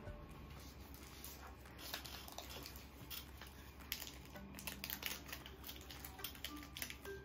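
Pokémon trading cards being handled and flipped through: a run of small clicks and light rustles, busier from about two seconds in.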